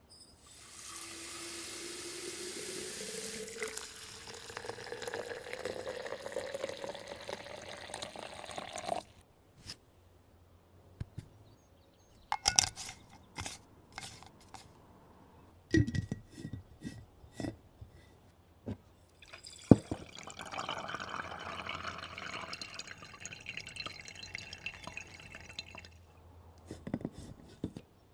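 Water poured into a glass mason jar of coffee grounds, its pitch rising steadily as the jar fills, for about eight seconds. This is followed by scattered clinks and clicks of the jar and a mesh filter lid being handled and screwed on, with one sharp knock. Liquid then runs again for several seconds.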